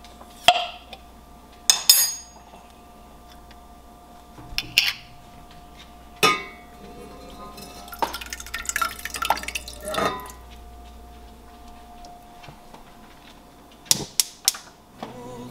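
Glass canning jar and stainless saucepan being handled: a few sharp clinks and knocks, one of them ringing briefly, then a couple of seconds of thick homemade tomato sauce glugging and scraping out of the jar into the pan, and a few more clinks near the end. A faint steady hum runs underneath.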